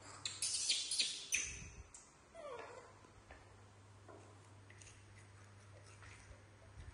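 A burst of sharp, crinkly crackling of crispy snacks in the first second and a half. About two and a half seconds in comes a baby macaque's short falling squeak, followed by faint scattered crunching as the monkeys eat.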